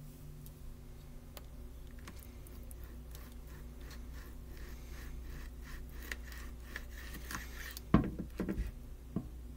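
Knife sawing through a seasoning-coated baked pork chop, a run of light scraping strokes against the plate. About eight seconds in comes a sharp knock, then a few smaller knocks.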